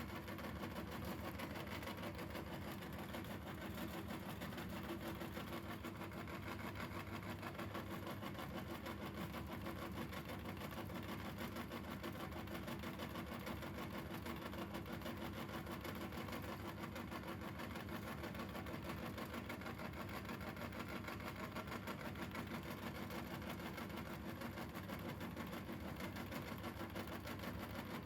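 Electric meat grinder running steadily as it grinds Orbeez water beads: an even motor hum with no change in speed.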